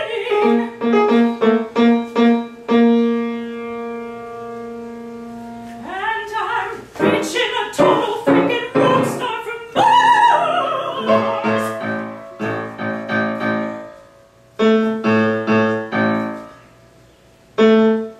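Soprano singing in operatic style with grand piano accompaniment. The piano strikes repeated chords and lets one ring. The voice enters with a wide vibrato about six seconds in, and then the piano goes back to short repeated chords.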